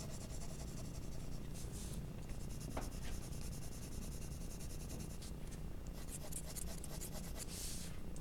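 Graphite pencil shading on paper: soft scratchy strokes, with a longer run of quick back-and-forth strokes near the end.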